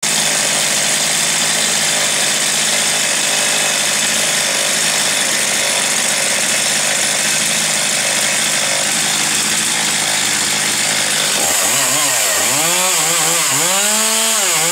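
Two-stroke chainsaw running loud and steady at high speed, then revved up and down in five or six quick throttle blips from about 11 seconds in.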